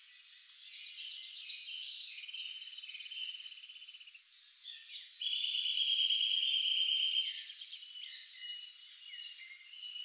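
A chorus of many small animals calling: overlapping high chirps, quick falling notes and buzzy trills, with a longer steady trill from about five to seven seconds in.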